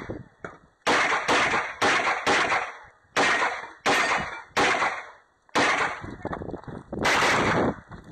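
Glock 34 9mm pistol firing about a dozen shots, mostly in pairs about half a second apart, with short gaps between the pairs.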